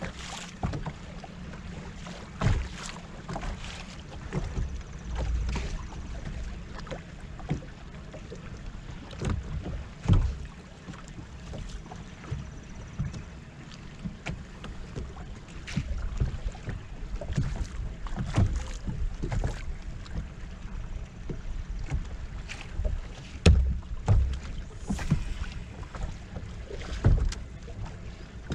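Choppy water slapping against a bass boat's hull in irregular knocks, over a steady low rumble of wind on the microphone.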